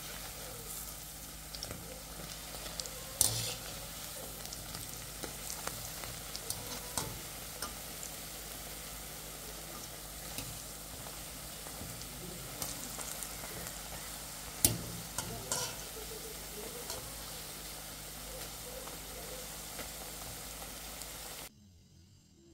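Pakoras deep-frying in hot oil in a wok: a steady sizzle, with a few sharp clinks of the wire spider skimmer against the pan as they are turned. The sizzle stops abruptly about a second before the end.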